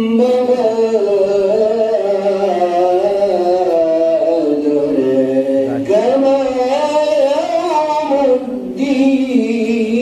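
A man reciting the Quran in a long melodic chant, holding and bending each note through drawn-out phrases. A new phrase begins about six seconds in and another near the end.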